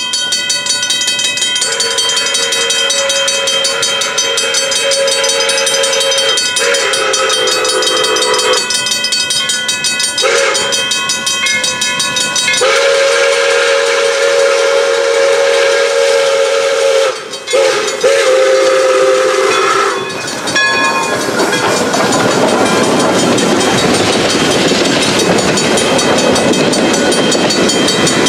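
Pere Marquette 1225 steam locomotive's chime whistle blowing a series of long blasts with one short blast between them, the pattern sounded for a road crossing. It stops about 20 seconds in, and then the train rolls past with a steady rush of wheel and car noise.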